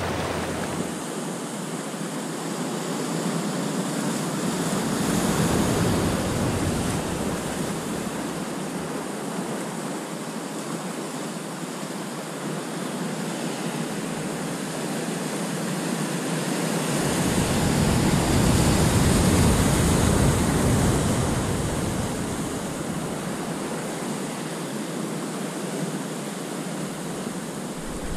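Ocean surf breaking and washing over shoreline rocks: a continuous rush of white water that swells louder about five seconds in and again for a few seconds around eighteen to twenty seconds.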